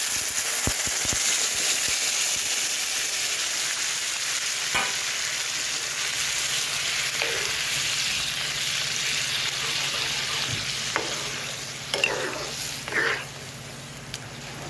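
Water poured into a hot kadai of fried elephant apple and potato paste sizzles loudly as it hits the pan. A spatula stirs it, scraping the pan a few times, and the sizzle slowly dies down toward the end.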